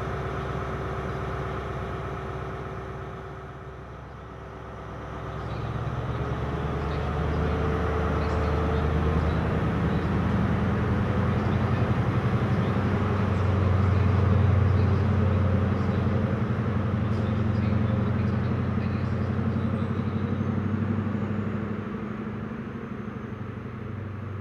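Class 43 HST power car diesel engines: first idling steadily with a held tone as the train stands at the platform, then, after a short dip, a power car's MTU engine running loud as the train moves through the station. It peaks about midway and fades near the end.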